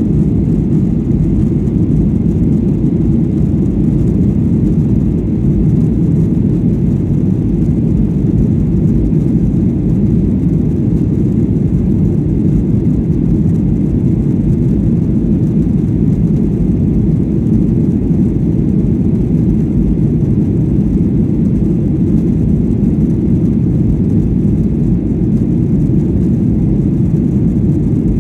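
Steady, deep cabin noise inside a Boeing 737-800 in its climb: its CFM56-7B turbofans at climb power and the airflow over the fuselage, unchanging throughout.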